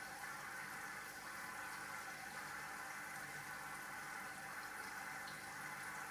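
Steady, fairly quiet bubbling and trickling of water circulating in a home aquarium, with a faint low hum beneath.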